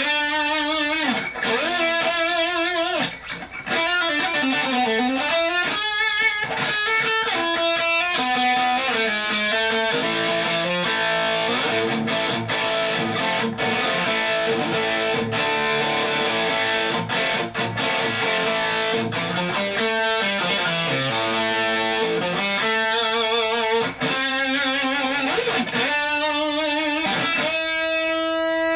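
Electric guitar played through a 1990s Tech 21 XXL overdrive pedal into a small bench amp: distorted held notes and chords, with pitch slides and a wavering wobble on the sustained notes.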